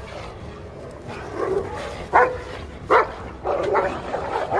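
Dogs barking and yelping in a fight: a few short barks, two sharp loud ones in the middle, then a quick run of barks near the end.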